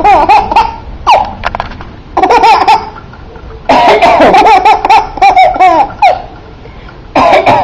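A four-month-old baby laughing hard in several bouts of high, wavering belly laughs, with short pauses for breath between them.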